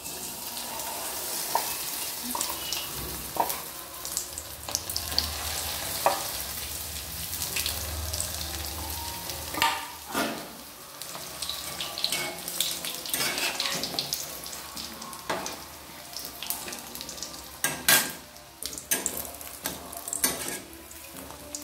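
Batter-coated chicken pakoras deep-frying in hot oil in an aluminium kadai: a steady sizzle with crackling and a few louder pops, starting suddenly as the pieces go into the oil. Near the end a metal spatula stirs and turns them in the oil.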